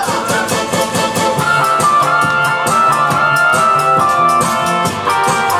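Instrumental break of a Korean trot song's backing track: a held-note melody line over a steady drum beat.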